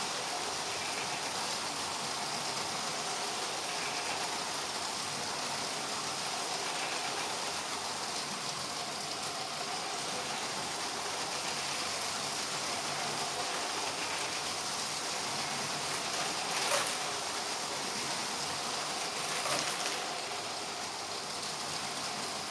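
LEGO trains' small electric motors whirring and plastic wheels rolling on LEGO track, a steady mechanical running, with two short clicks near the end.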